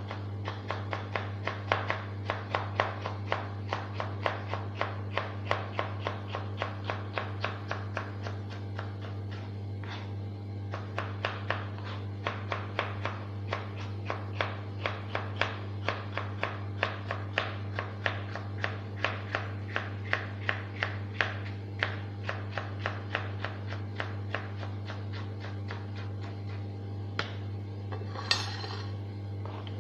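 Knife chopping on a cutting board in a steady rhythm of about three strokes a second, pausing briefly near ten seconds, as vegetables are cut for the dish, over a steady low electrical hum. A short scraping sound comes near the end.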